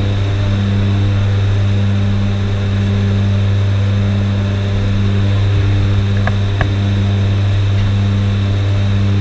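The twin turboprop engines and propellers of a Short Skyvan drone steadily at jump-run power, heard inside the cabin with the rear ramp door open. The drone has a slow rise and fall in its tone over a constant rush of air.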